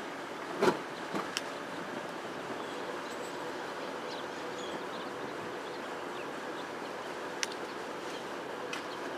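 Steady background noise with a faint steady hum, broken by a few short sharp clicks or knocks, the loudest under a second in and another near the end.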